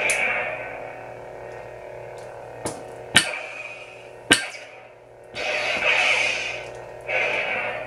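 Plecter Labs Prizm V5 lightsaber sound board playing the blade's steady electric hum. It fires three sharp clash effects in the middle, then two longer hissing effect bursts near the end.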